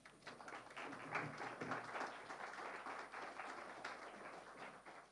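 Audience applauding, fairly faint, swelling within the first second and then gradually dying away.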